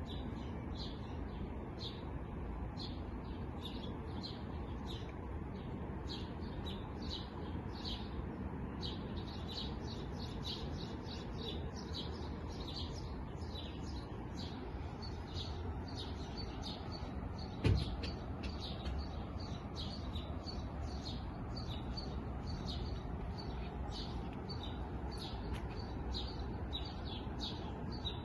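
Many small songbirds chirping in a dense, continuous chorus of short high chirps over a steady low rumble. A single thump about two-thirds of the way through.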